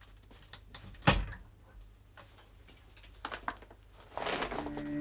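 Scattered light clicks and knocks, with one sharp thump about a second in; music with held organ-like notes comes in near the end.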